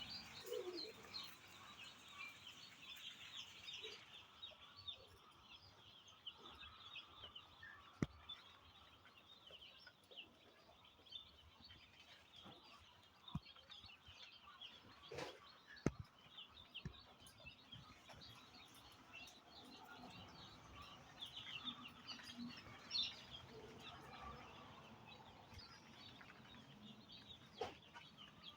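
Faint chatter of many chickens, a steady mass of short high clucks and cheeps, with a few sharp clicks scattered through it.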